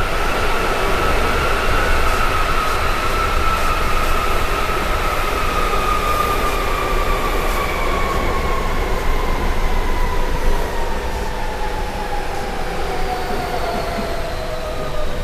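Berlin U-Bahn Type G train running and slowing, its motor whine falling steadily in pitch over the rumble of the train, the sign of the train braking.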